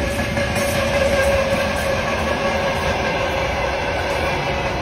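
Freight train of hopper and tank wagons rolling past at close range: the steady noise of steel wheels on the rails, with a steady tone held over it.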